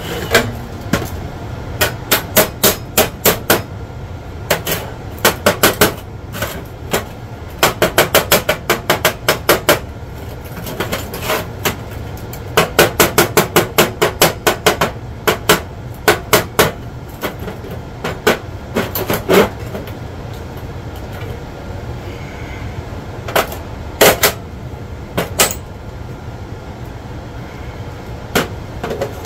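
Hammer striking a steel bar on a steel work surface in quick runs of light blows, several a second, with pauses between and a few louder single strikes.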